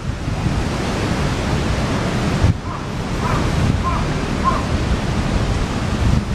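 Wind rushing and buffeting the microphone: a steady hiss over an uneven low rumble.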